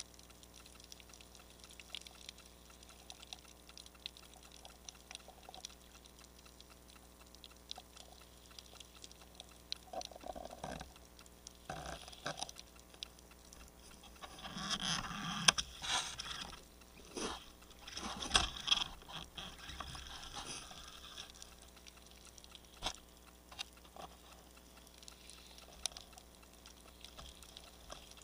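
Underwater: a faint, steady crackle of scattered clicks. Through the middle, a stretch of louder scraping and knocking comes from gloved hands handling the speargun that the camera is mounted on.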